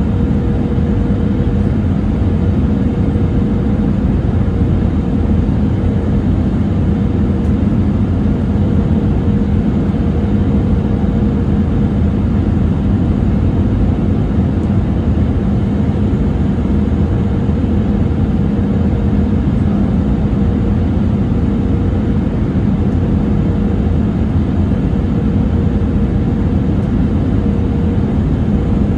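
Cabin noise of an Airbus A320-200 on final approach, heard from inside next to the wing: a steady rush of engines and airflow with a low hum and a fainter, higher steady tone.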